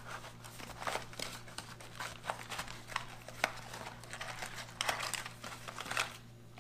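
A cardboard food box being opened by hand and a wrapped food tube slid out of it: light crinkling, scraping and small irregular clicks, busiest about five seconds in.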